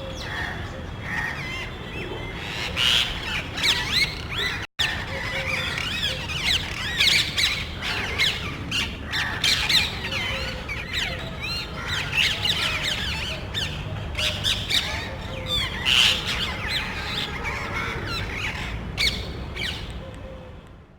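A small group of parrots squawking loudly, many harsh calls overlapping without pause, with a brief break about five seconds in and fading away near the end.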